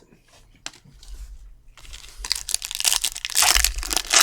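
A trading-card pack wrapper being torn open and crinkled by hand. The crackling starts about two seconds in and grows louder toward the end.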